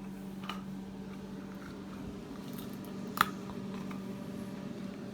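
A steady low hum with a faint click about half a second in and one sharp click about three seconds in.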